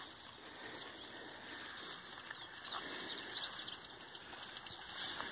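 Small birds chirping, many short high chirps that cluster in the middle, over a faint steady hiss.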